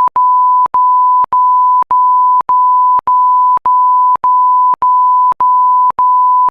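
A loud, steady electronic beep at a single pitch, broken by brief gaps a little under twice a second.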